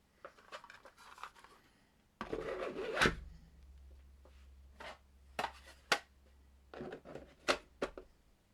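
3D-printed plastic insert trays being slid and set down into a cardboard board game box: scraping and rubbing with sharp plastic clacks. About two seconds in there is a longer scraping slide that ends in a loud knock, followed by several separate clacks.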